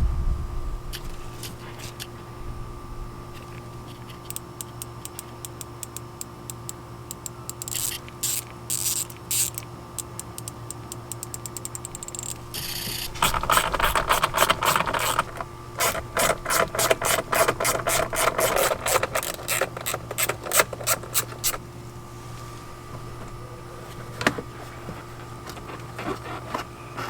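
A quarter-inch ratchet clicking in runs as fasteners are turned, mixed with tool and plastic handling scrapes. The busiest, loudest stretch is in the middle. A steady low hum runs underneath.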